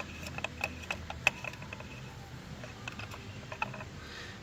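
Ratchet wrench with a deep spark plug socket clicking in irregular metallic ticks as a spark plug is backed out of the engine; the clicks stop about three and a half seconds in.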